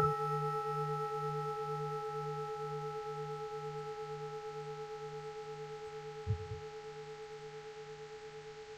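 Large Buddhist temple bell ringing on after a stroke, slowly dying away, its low hum pulsing about twice a second under higher steady tones. A faint low knock about six seconds in.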